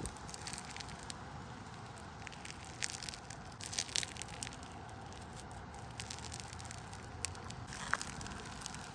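Fingers pressing and poking into a tub of thick, fluffy white slime, giving irregular small crackles and pops. They come in quick clusters about three to four seconds in and again near the end.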